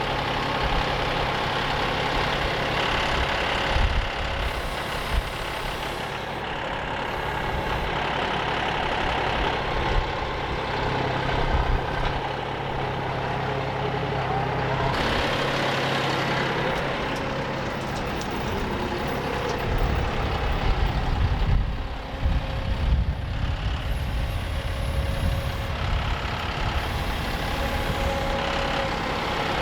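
John Deere tractor engine running steadily while moving hay bales, its note shifting a few times.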